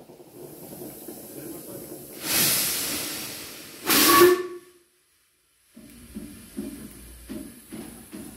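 Narrow-gauge steam locomotive letting off steam: a loud hiss that fades over about a second and a half, then a second, louder burst that cuts off abruptly. After a short break comes a quieter steady hiss with soft irregular knocks.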